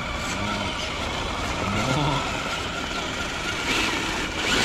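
Traxxas Mercedes-Benz G63 6x6 RC crawler climbing over rocks, its electric motor and drivetrain whirring steadily under load.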